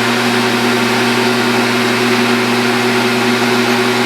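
Metal lathe running at a steady speed: a steady motor hum with an even hiss over it.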